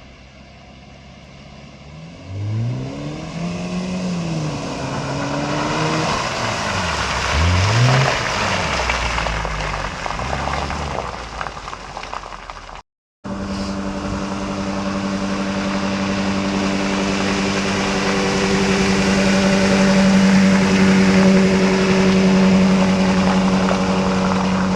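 An off-road vehicle's engine revving, its pitch rising and falling several times. After a break about thirteen seconds in, an engine runs steadily at high revs, getting louder towards the end.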